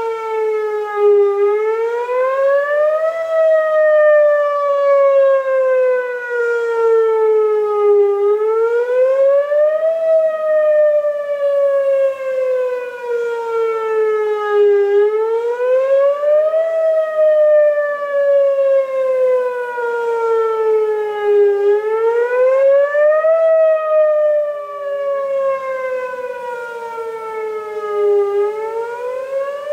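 Outdoor warning siren of a city's civil defense system sounding during its monthly test. It wails in a steady cycle, its pitch rising over about two seconds and then sinking slowly, repeating roughly every seven seconds. A second, fainter siren can be heard out of step with it later on.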